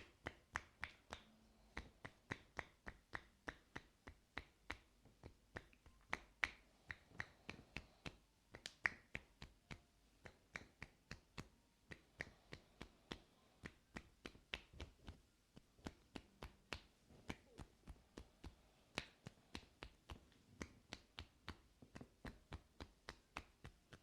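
Quiet, sharp clicks close to the microphone, about two to three a second, from ear-cleaning tools working at the ear.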